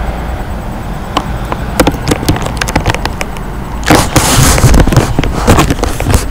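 Handling noise from a hand-held phone camera being moved about: scattered clicks and knocks, and a burst of rubbing about four seconds in, over a low steady rumble.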